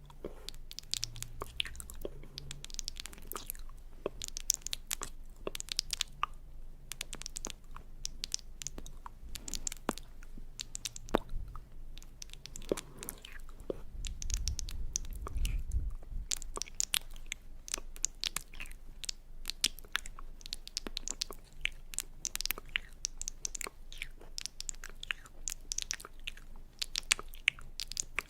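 Close-miked crisp crunching, many small sharp crackles and clicks in quick, irregular succession.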